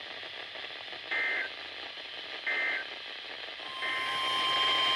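Emergency Alert System end-of-message data bursts over weather-radio hiss: three short, identical buzzy squawks about 1.4 seconds apart, marking the end of the previous warning. Near the end a steady alert tone comes on, the NOAA Weather Radio warning tone that leads into the next alert.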